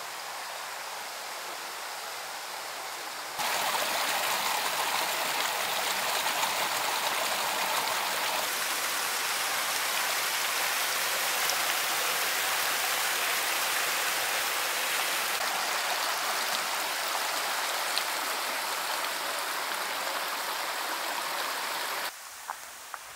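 Rushing water of a mountain creek, a steady noise that jumps louder about three seconds in and drops back again near the end.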